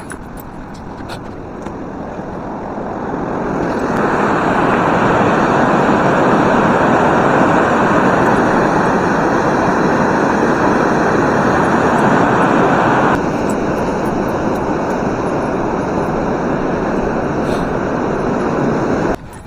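Water rushing over a weir below a footbridge, a steady noise that grows louder over the first few seconds and then holds. It drops slightly about two-thirds of the way through and cuts off abruptly just before the end.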